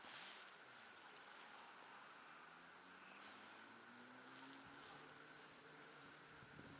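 Near silence: faint outdoor background, with a faint hum rising in pitch through the second half.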